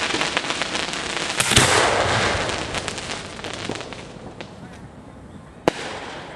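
Fireworks going off at close range: a dense, rapid crackling of pops with a loud bang about a second and a half in. The crackling fades through the middle, and another sharp bang comes near the end.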